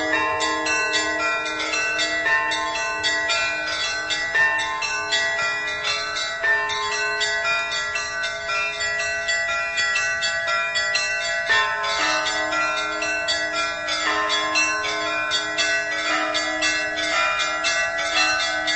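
Russian Orthodox church bells rung as a continuous festive Easter peal. Small bells are struck rapidly, several times a second, over the longer ringing tones of the larger bells.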